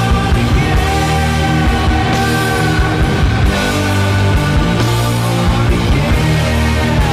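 Loud heavy rock music with a steady driving beat.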